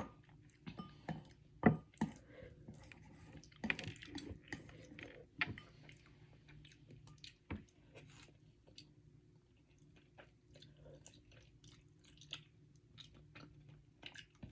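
A person chewing instant noodles close to the microphone: irregular wet mouth clicks and smacks throughout, with a sharp knock just under two seconds in.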